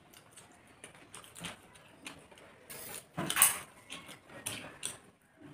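Eating sounds: chewing and fingers working biryani rice on metal plates, a run of small clicks and smacks with a louder burst about three seconds in.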